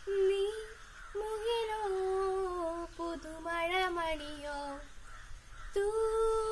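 A young girl singing solo, unaccompanied, in long held notes. The song comes in three phrases, with short breaths about a second in and about five seconds in.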